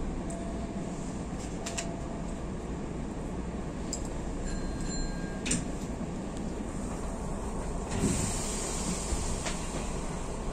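Hankyu limited express train running, heard from inside the car: a steady rumble with a few sharp clicks and some faint brief high tones.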